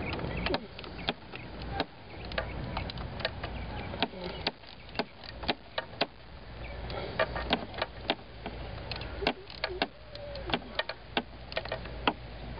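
Irregular sharp metallic clicks and taps of hand tools working on the fuel filter housing bolts, a few clicks a second at times, over a steady low hum.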